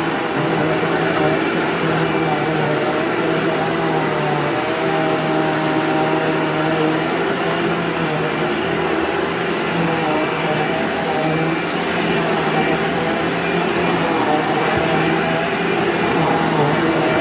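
Vacuum cleaner running steadily, its motor hum wavering slightly in pitch.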